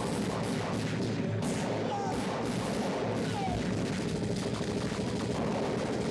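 Heavy, continuous gunfire from several automatic rifles firing at once, rapid shots packed so close they run together without a break.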